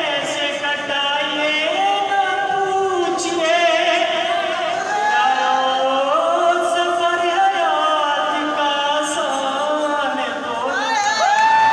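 A man singing solo into a microphone, unaccompanied, holding long notes with a wavering pitch and sliding between them. Near the end he rises to a higher held note.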